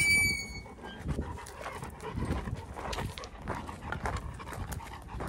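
Cane Corso panting as it walks, with footsteps crunching on gravel and rock. It opens with a short, high squeal lasting under a second, the loudest sound here.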